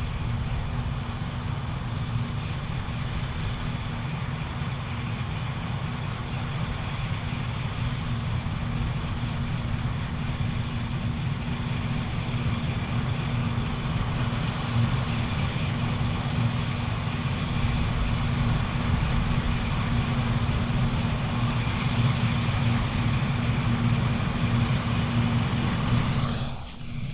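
Claas Lexion 780TT combine harvester working while harvesting barley: a steady engine and threshing-machinery drone with a constant low hum, which dips briefly near the end.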